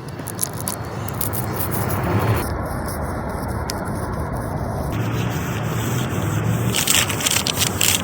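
Something being peeled off slowly: a continuous crackling, tearing rasp, with a burst of sharper crackles near the end.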